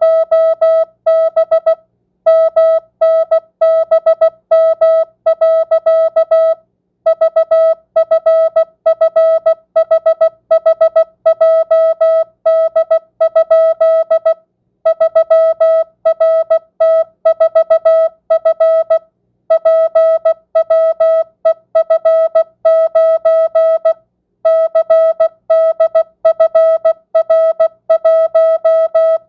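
Morse code (CW) practice tone sent at 16 words per minute, non-Farnsworth: a single steady beep keyed on and off in dots and dashes, spelling random letters and mixed-length words, with short breaks between word groups.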